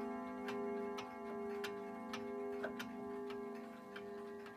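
Old pendulum regulator wall clock ticking about twice a second, while its chime rods go on ringing with a steady, slowly fading tone.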